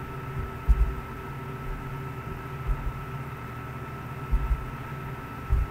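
Steady background hum with a faint high whine, broken by a few dull low thumps.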